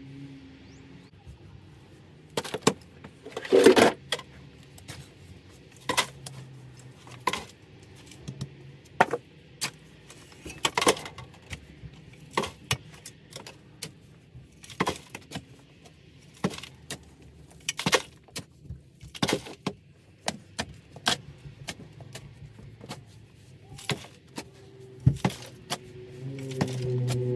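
Steel shovel blade stabbing and scraping into packed dirt and gravel, in sharp irregular strikes roughly once a second, with a longer grinding scrape about four seconds in.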